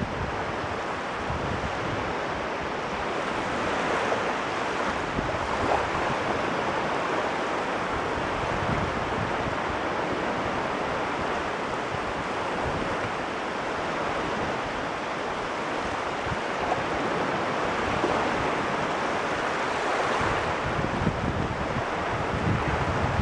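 Caspian Sea waves breaking, a steady rush of water that swells about four seconds in and again near the end, with some wind on the microphone.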